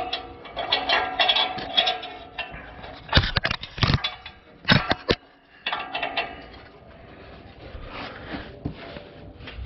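Wrench clinking and knocking against metal while loosening an exhaust oxygen sensor under a truck. The clinks are irregular, with the loudest clanks about three to four seconds and five seconds in.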